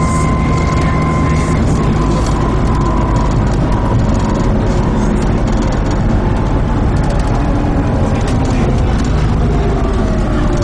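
Volvo B7TL bus with a ZF Ecomat automatic gearbox running under way: a steady engine and driveline noise with a thin whine that falls in pitch after about two seconds, and falls again near the end.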